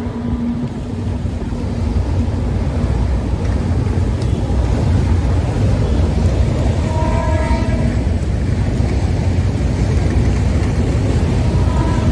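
Passenger train crossing a river bridge, a steady low rumble. A short horn sounds briefly about seven seconds in and again near the end.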